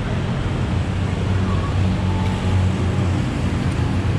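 Harley-Davidson Sportster Forty-Eight's air-cooled 1200 cc V-twin running steadily under way, a deep, even engine note with road and wind noise over it.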